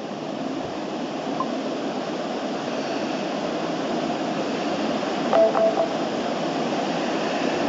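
Steady room hiss, like a fan or air-conditioner running, with a brief single tone about five seconds in.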